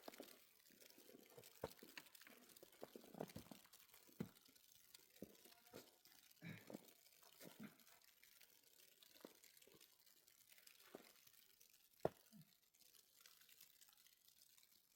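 Near silence with faint, irregular small clicks and taps; one sharper click about twelve seconds in.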